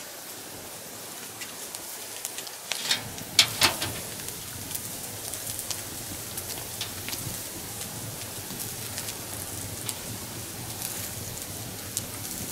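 Campfire crackling under meat sizzling in a wire grill basket: a steady hiss with scattered sharp pops, the two loudest a little over three seconds in.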